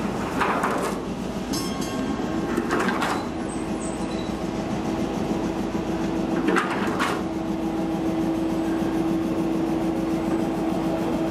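Panama Canal electric towing locomotive running on its rails beside the lock: a steady rumble, with a steady hum setting in about two seconds in and a few short, sharper noises, one near the start, one around three seconds and one around seven seconds.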